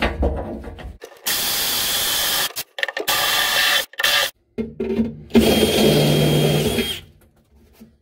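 Cordless drill running in four short bursts with pauses between, the last one the longest, as it bores the anchor-bolt hole for a three-point seat belt in the upper rear corner of the truck cab.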